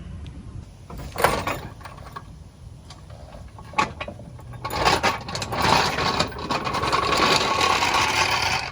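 Lug nuts being run onto the wheel studs with a power tool. There are two sharp metallic knocks, then the tool runs loud and steady for about four seconds before cutting off at the end.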